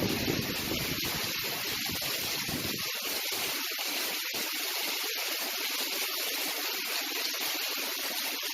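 Heavy rain falling steadily in a storm, a dense even hiss. A low rumble sits under it for the first three seconds, then drops away.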